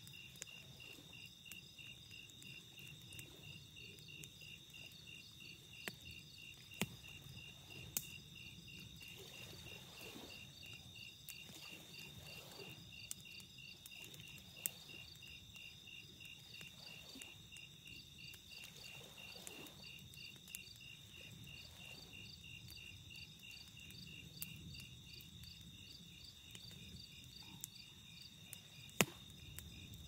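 Wood campfire crackling, with sharp pops every few seconds, the loudest near the end, over a steady chorus of crickets chirping in fast pulses.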